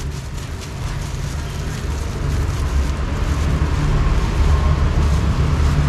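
Clear plastic bag crinkling as wheat flour is poured from it into a plastic tub, over a low rumble that grows louder.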